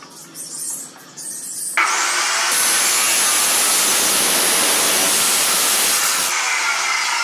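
Abrasive chop saw starts up about two seconds in and grinds through square steel pipe: a loud, steady hissing grind with a faint high whine, which stops abruptly near the end. Before it, light clicks of the pipe being set in the clamp.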